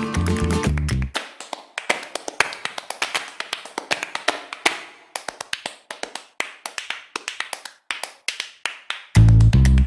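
Guitar-led background music. About a second in, the bass and guitar drop out, leaving a run of sharp percussive taps and claps. The full band comes back in near the end.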